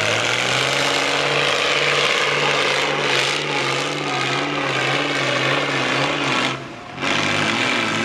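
Truck-trial prototype's diesel engine running hard at high revs under load as it climbs a steep slope, its pitch wavering slightly. About six and a half seconds in the revs briefly drop off, then pick straight back up.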